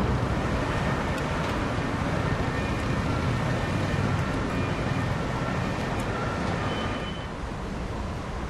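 Steady low rumble of engines and vehicle traffic, with a few faint held tones in the middle. It eases slightly near the end.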